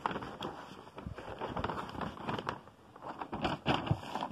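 Rustling and scraping of packaging as a canvas duffel bag is tugged out of a cardboard box, with scattered crackles and knocks.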